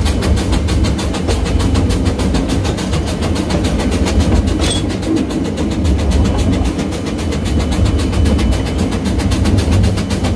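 Wiscasset, Waterville & Farmington No. 9, a two-foot gauge Forney steam locomotive, working steam under way: rapid, even exhaust beats from its stack over the rumble of the train running on the rails.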